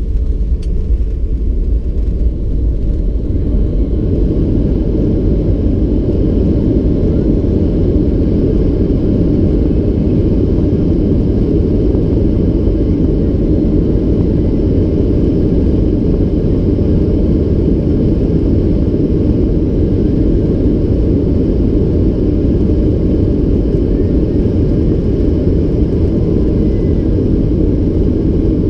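Steady low rumble heard inside the cabin of a Boeing 737-800 as it rolls along the runway after landing, its CFM56 engines and wheels running.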